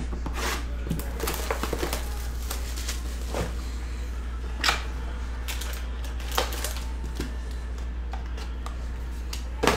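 Plastic shrink wrap crinkling and tearing as a trading-card hobby box is unwrapped, with cardboard box handling and a few sharp snaps. A steady low hum runs underneath.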